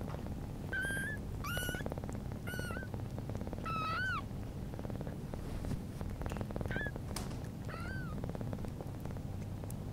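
Newborn British Shorthair kittens mewing: about six short, high-pitched squeaky calls, one a little longer near the middle, over the mother cat's steady purring.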